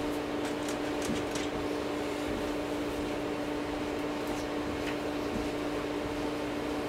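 A steady machine hum, with a few faint light clicks in the first second and a half.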